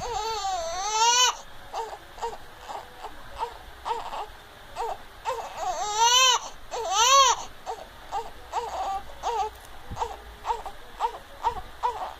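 Young infant crying: a long loud wail at the start and two more about six and seven seconds in, with short fussy sobbing cries coming about twice a second between them.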